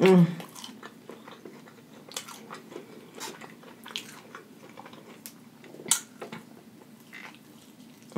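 Close-up eating of fried chicken wings: biting and chewing, with scattered crackly crunches and wet mouth sounds at irregular intervals. A brief voiced sound, the loudest moment, comes right at the start.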